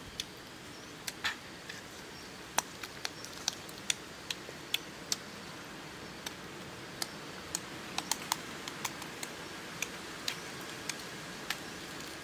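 Sharp, irregular clicks and crackles of duck eggshells being cracked and peeled by hand, over a steady background hiss.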